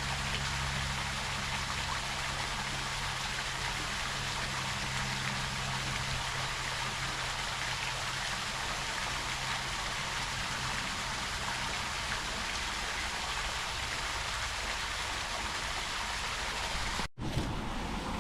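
Canyon Creek Falls, a small creek waterfall, rushing with a steady, even hiss of falling water. A low steady hum sits underneath in the first half and fades out, and the sound drops out for an instant near the end.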